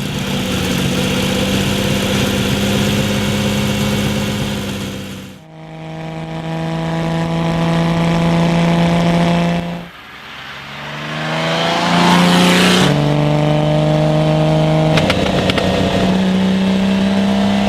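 1970 Lamborghini Miura S's V12 running under way, holding steady engine notes broken by two sudden cuts. About ten seconds in it revs up in a rising pitch, then drops sharply near thirteen seconds as with a gearshift.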